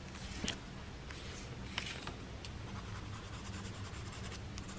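Faint colouring strokes scratching on paper as grass is filled in, with two sharper ticks about half a second and nearly two seconds in.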